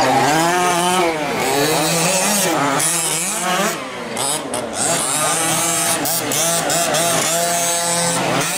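Several 1/5-scale gas RC trucks' small two-stroke engines revving, their overlapping pitches rising and falling in waves as the trucks throttle up and back off, with a brief lull about four seconds in.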